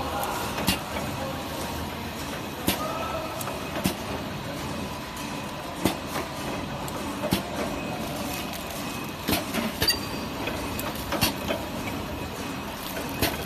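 Horizontal box-motion flow packing machine running with a steady mechanical noise, broken by sharp clicks and knocks every second or two as it wraps and seals frozen meat portions in film.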